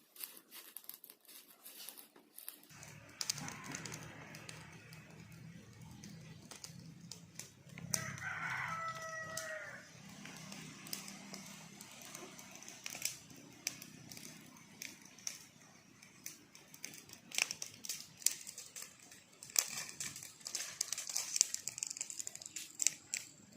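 A rooster crows once, a call of about two seconds, about eight seconds in. Scattered crackles and rustling run through, and a steady low hum comes in near the start.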